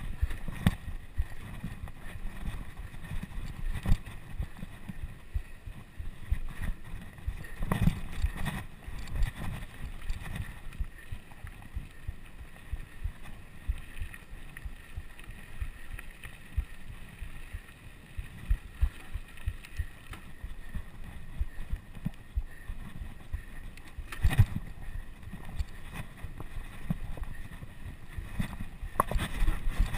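Wind buffeting the microphone and riding noise from a bicycle moving at speed, a continuous low rumble. Sharp knocks and rattles come from bumps, the loudest about eight seconds in, again near twenty-four seconds, and just before the end.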